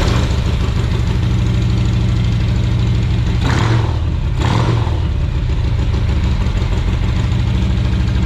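2017 Harley-Davidson Tri Glide's V-twin engine idling steadily just after starting, its freshly replaced fuel pump feeding it. There is a brief rise in noise twice, about a second apart, near the middle.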